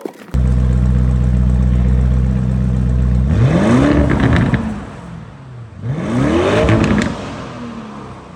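Lamborghini Urus twin-turbo V8 holding a steady fast idle, then revved twice. Each blip rises and falls in pitch, with crackles and pops from the exhaust as it comes off the throttle.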